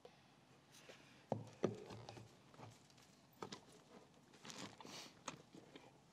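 Light, scattered knocks and clicks of PVC pipe and fittings being handled, the two sharpest about a second and a half in, with a brief shuffle on crushed gravel.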